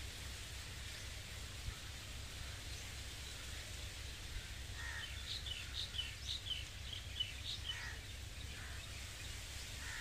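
Wind blowing through a tree, rustling its leaves and hanging dry seed pods, over a steady low rumble. From about five seconds in, a bird gives a quick run of short, high chirps for a few seconds.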